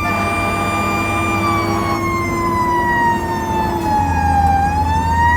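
Fire engine's mechanical Q siren wailing: its pitch holds steady, then winds down slowly over about three seconds and starts winding back up near the end. The truck's engine runs underneath as a low drone.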